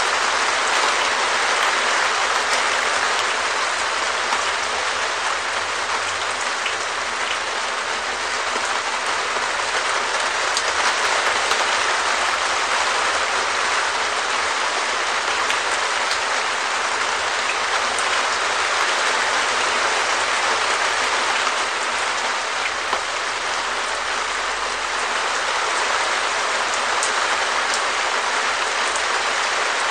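Rain falling steadily on a Perspex shed roof: a dense, even patter on the plastic sheeting with single drops ticking through it.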